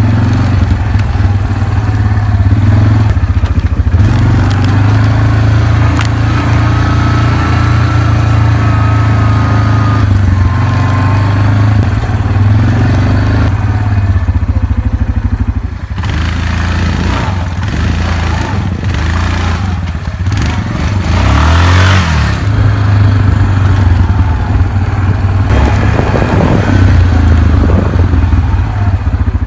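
ATV engine running under load on a bumpy trail, a steady low drone that briefly drops off and picks up again about 16 seconds in and again around 22 seconds. A short burst of rushing noise comes just before the second drop.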